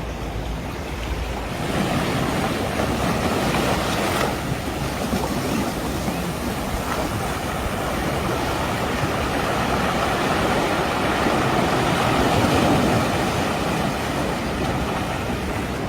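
Surf washing onto a sandy beach: a steady, continuous rush of waves.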